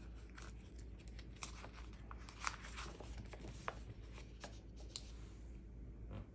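Paper planner stickers being peeled from their sheet and pressed onto planner pages: soft paper rustling with a few sharp clicks, going quieter near the end.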